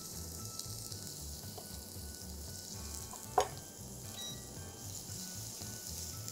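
Chopped shallot sizzling as it starts to fry in hot extra-virgin olive oil in a pan, a steady hiss, with one short sharp knock about three and a half seconds in.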